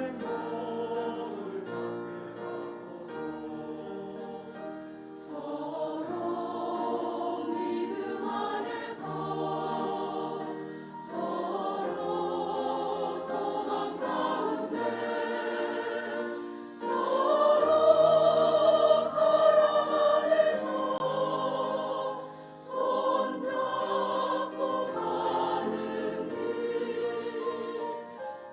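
Church choir singing a hymn, sustained chords in several voices, swelling to its loudest a little past the middle before briefly easing off.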